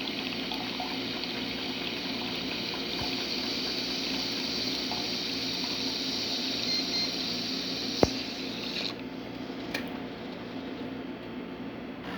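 Jura F8 espresso machine's steam frother running, drawing water up from a cup with a steady hiss and liquid gurgle. A sharp click comes about eight seconds in, the hiss cuts off just after, and a quieter steady machine hum is left.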